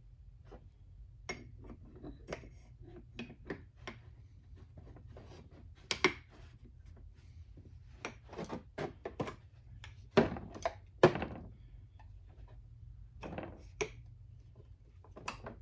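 Pistons and connecting rods being handled on a workbench: irregular metal clicks, clinks and knocks as the parts are picked up, turned and set down, with a few louder knocks about six seconds in and again around ten and eleven seconds.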